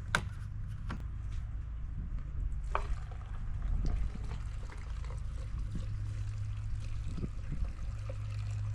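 Gasoline pouring steadily from a fuel can into a generator's fuel tank, with a few light knocks of the can and a steady low hum underneath.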